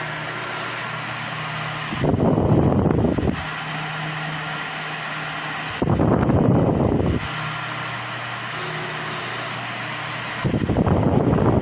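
Mondial Turbo Pro 55P electric fan running with a steady hum, its air blowing into the microphone in a loud low rush about every four seconds, three times, as the oscillating head sweeps past.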